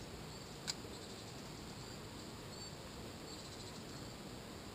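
Spinning reel being fished: one sharp click about a second in, like the bail snapping shut after a cast, over a low steady hiss. Faint high chirps come and go now and then.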